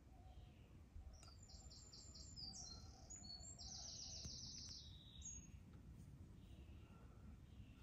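Faint songbird chirps, a string of short high notes and then a quick trill, over quiet low room noise.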